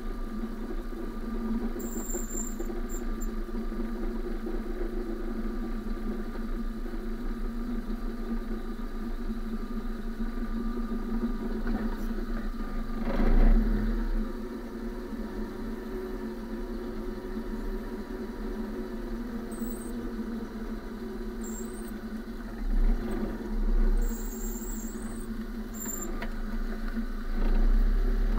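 Car running gear and tyre noise heard from inside the front wheel well while the car rolls slowly: a steady hum with low rumble, a few louder thumps about halfway through and again near the end, and several brief high-pitched squeaks.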